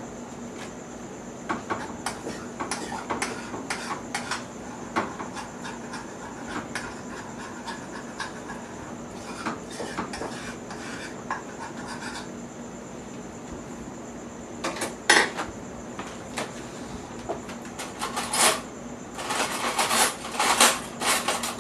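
A metal utensil clinking and scraping against a saucepan as the cream sauce is stirred, with a few louder clatters near the end. A faint steady hum runs underneath.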